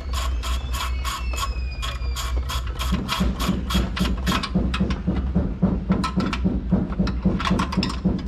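Ratchet wrench clicking rapidly and evenly as the 12 mm bolts on the radiator support are loosened, over a steady low hum. A low drone joins about three seconds in.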